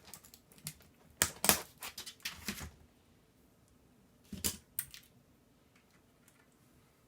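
Sharp clicks and light clatter of small plastic and metal parts of a disassembled computer keyboard being handled. A cluster of clicks comes about one to three seconds in, then two more a little after four seconds.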